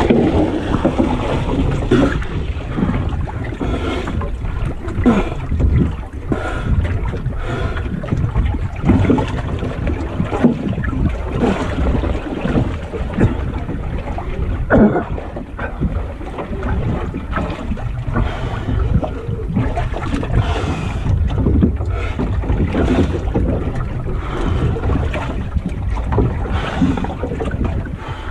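Wind buffeting the microphone and water sloshing and splashing around a capsized wooden Goat Island Skiff, with irregular knocks from the hull and rigging as it lies on its side in the waves.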